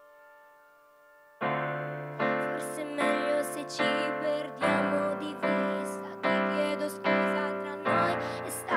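Digital piano played solo with no voice: a held chord dies away, then about one and a half seconds in the player starts striking rhythmic chords, a new one roughly every half second, over left-hand bass notes that change every few seconds.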